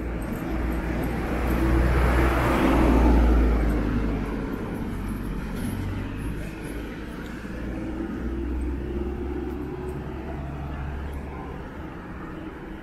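A car drives past with engine and tyre noise, swelling to its loudest about three seconds in and then fading away. A second, quieter vehicle passes later.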